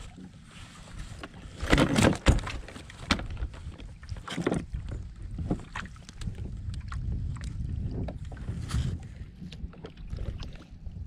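Handling noise on a fishing kayak: a louder clattering burst about two seconds in, then scattered knocks and rustles against the hull, over a low steady rumble.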